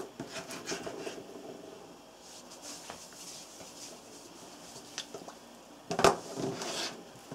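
Knife slicing and scraping through a slab of raw pork fat on a wooden cutting board, soft and wet. About six seconds in, a sharp knock on the board as the slab is lifted and moved, followed by brief rustling handling.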